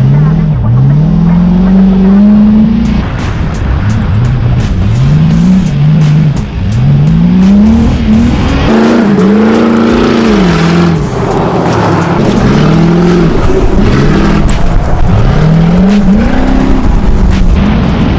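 Cheap rally car's engine at full throttle on a dirt course, revving up and dropping back again and again, about eight times, as it accelerates and lifts or shifts between corners. Scattered sharp clicks and knocks run under the engine from about three seconds in.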